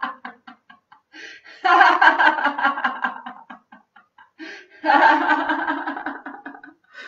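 A woman laughing loudly in bouts: one dies away just after the start, then two more begin about one and a half and five seconds in. Each bout starts full and breaks up into quick short pulses as it fades. This is deliberate laughter-yoga laughing, given out on the breath after a deep breath in.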